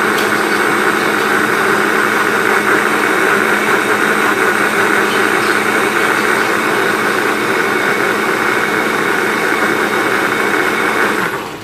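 Countertop blender motor running steadily with a constant hum as it purées onion and tomato with a little water. It is switched off near the end and the sound cuts off.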